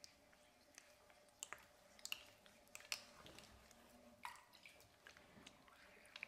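Faint, scattered small clicks and soft handling noises of hands pressing and patting a lump of wet clay on a potter's wheel head, over a faint steady hum.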